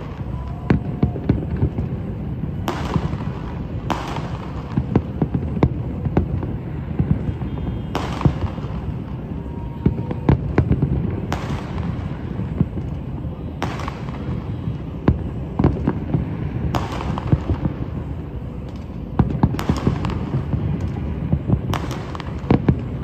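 Fireworks going off: a loud bang every one to three seconds with smaller crackles in between, over a steady low background din.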